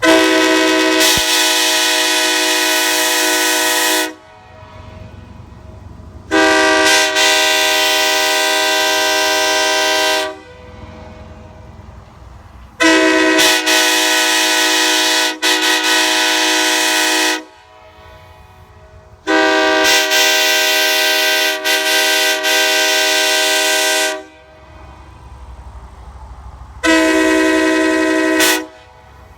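Nathan Airchime K5LA and K3LA raised-letter train horns blown on 130 psi air, sounding in turn: five loud blasts, each a steady multi-note chord, most about four to five seconds long and the last a short one. The third and fourth blasts break off briefly once or twice.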